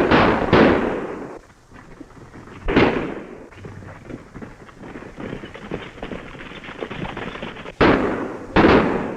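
Gunshots exchanged in a shootout: two in quick succession at the start, one about three seconds in, and two more near the end, each dying away in a short ring.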